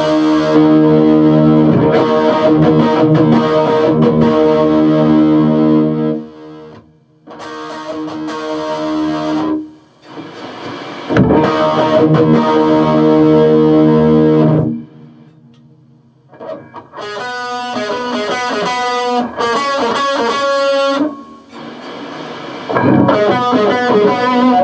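Distorted electric guitar played loud through an amp and an attenuator's DI output into the PA, in an A/B comparison of the two sounds. Three long ringing chords with short breaks between them, then a busier picked riff of separate notes.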